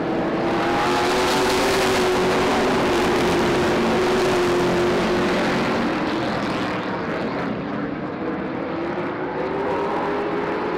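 Pack of Super Stock race cars racing past, engines running hard with pitch sliding slightly as they go. Loudest as the field passes close about a second in; it fades a few seconds later and builds again near the end as the cars come back around.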